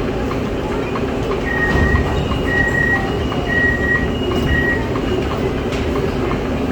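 Door-closing warning beeps on an MRT Putrajaya Line train: four evenly spaced high beeps about a second apart, over the train's steady hum.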